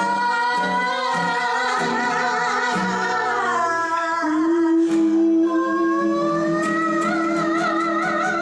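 A song: a voice holding long, wavering sung notes over a plucked guitar accompaniment.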